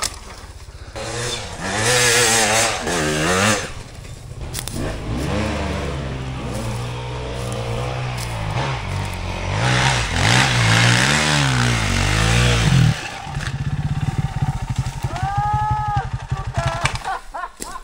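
Dirt bike engine revving up and down as it is ridden, its pitch rising and falling with the throttle, loudest about two seconds in and again around ten to twelve seconds. About 13 seconds in it drops to a steady low-revving note.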